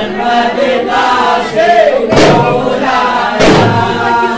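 A group of men chanting together in unison, with a hand frame drum struck at a steady beat about once a second.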